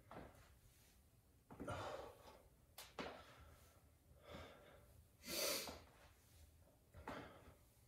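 Faint breathing of a man exercising, several audible breaths with a strong exhale about five and a half seconds in, and a couple of short knocks near three seconds in.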